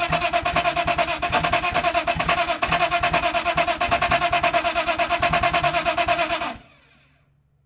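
BMW M50TU straight-six being cranked over by its starter motor without firing: a fast, even chugging of about ten pulses a second over the starter's whine. The cranking cuts off abruptly about six and a half seconds in.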